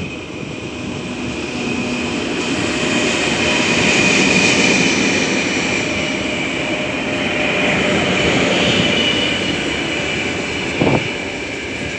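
Two coupled 2ES5K Ermak electric freight locomotives passing close by: a steady rush and rumble of running gear with a high whine, growing louder over the first few seconds and staying loud as the locomotives come level. A short knock sounds near the end.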